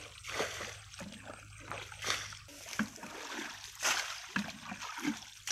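Muddy water splashing as a plastic bucket is dipped into a shallow paddy pool and emptied out, in irregular surges, the loudest pour just before four seconds in: water being bailed out of the pool.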